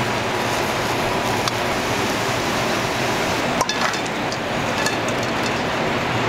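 Steady sizzling hiss from a commercial chargrill with chicken cooking on it, with a few light clinks of metal tongs and plates about three and a half seconds in.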